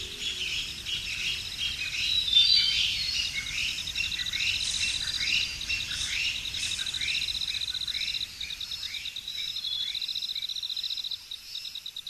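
Forest animal sounds: an insect trills steadily at a high pitch while a bird gives a run of short downward-slurred calls, about two a second, which die away near the end. Faint music fades out in the first moment.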